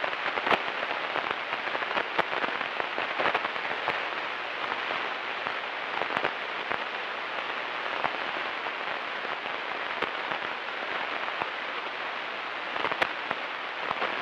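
Steady static hiss with scattered crackles and clicks: the background noise of a Cessna 172's radio and intercom audio between transmissions.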